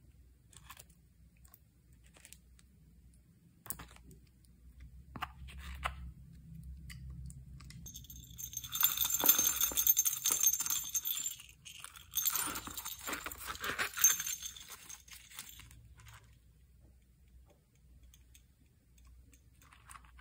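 Small hard slime add-ins clinking and rattling as they are handled, with scattered clicks at first and then two busy crackly stretches of about three seconds each near the middle.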